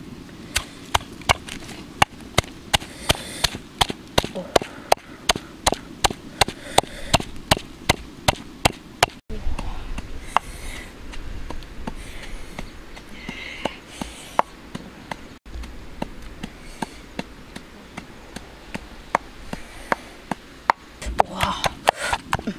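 Wooden pestle pounding chilies, garlic and coarse salt in a clay mortar: quick, sharp knocks at an even pace of about three a second, the mix turning to a wet red paste.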